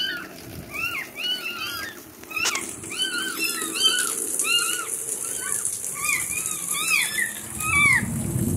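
Several young kittens meowing over and over, short high-pitched calls that rise and fall, a few each second, overlapping at different pitches. These are the distress cries of kittens caught in floodwater.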